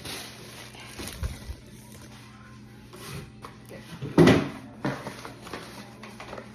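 Handling and opening a cardboard shoe box: a few knocks and scrapes, the loudest a brief scraping rustle about four seconds in.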